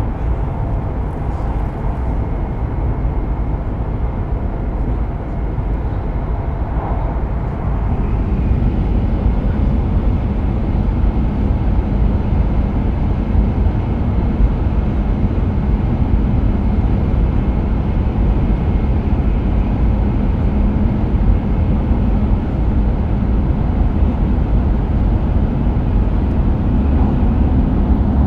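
Inside the cabin of an E5 series Shinkansen running at high speed: a steady low rumble and rush of running noise, a little louder from about eight seconds in.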